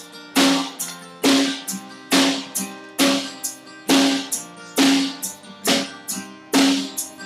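A band playing a song live, instrumental with no singing: a drum kit keeps a steady beat, about one strong stroke every second, under pitched instrument tones.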